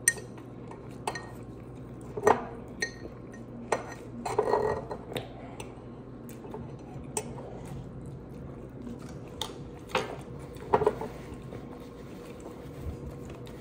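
Close-miked eating of a taco: a bite and chewing, with scattered sharp clicks and light clatter of plastic food containers and dishes on the table, over a faint steady hum.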